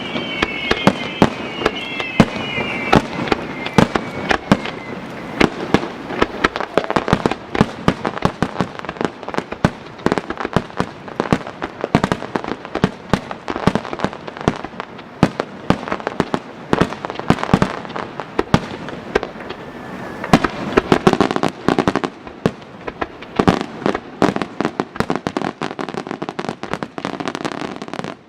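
Japanese starmine barrage of aerial firework shells: dense, rapid bangs and crackles in quick succession, with falling whistles in the first few seconds.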